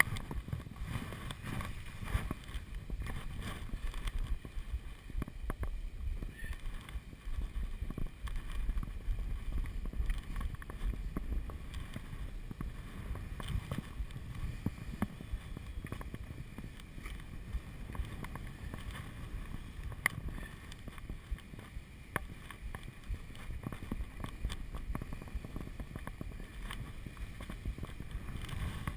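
Skis sliding and scraping over snow on a downhill run, with a steady rumble of wind on the camera microphone.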